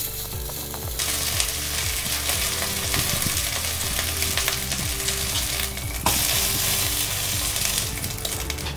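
Beef rib searing in hot oil in a small cast-iron Dutch oven: a steady frying sizzle that grows louder about a second in and surges again after a sharp tap about six seconds in.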